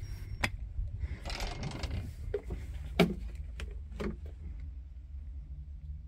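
Cab door of a Toro Groundsmaster 580D mower: the latch clicks open, the door scrapes as it swings, then a few knocks and thumps follow, the loudest about three seconds in.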